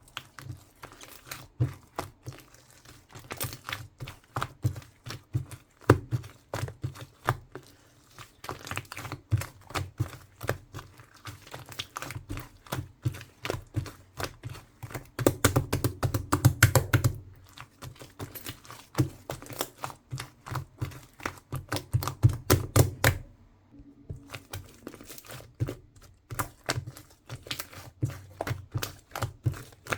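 Slime being kneaded by hand with clay mixed in: fast runs of sticky clicks and snaps, with brief pauses about 17 and 24 seconds in.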